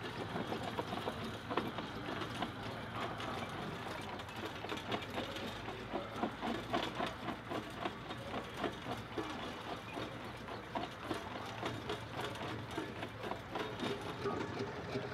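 Portable steam engine running and belt-driving vintage farm machinery, with a steady mechanical clatter and many small rapid knocks.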